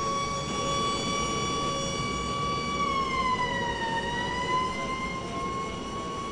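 Police car siren holding one high, steady tone that sags a little in pitch midway and rises back, over a low rumble.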